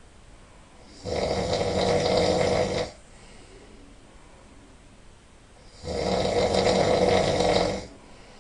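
A person snoring really loud: two long snores about five seconds apart, each lasting about two seconds.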